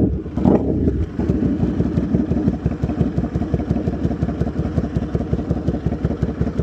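2009 Buell 1125R V-twin through a loud custom muffler, dropping off high revs as the throttle closes, with a short blip about half a second in, then settling into an idle of even, rapid exhaust pulses. This is the idle the owner says is not quite right and needs a tune after the exhaust change.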